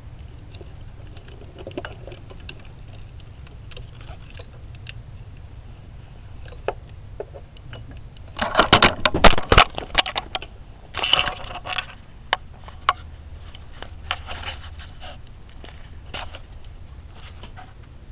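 A handheld camera falling and clattering: a loud burst of knocks and scrapes about eight seconds in. More rattling and scraping follows over the next few seconds as it is handled and set back up.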